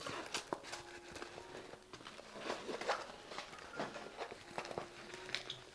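Irregular rustling and crinkling of a rolled diamond-painting canvas and its plastic cover film as it is unrolled and handled, with scattered soft ticks and taps.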